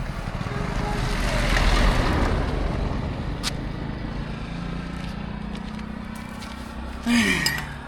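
A car passing on the road, its noise swelling to a peak about two seconds in and then fading. There is a sharp metal click about halfway through and a brief clatter near the end.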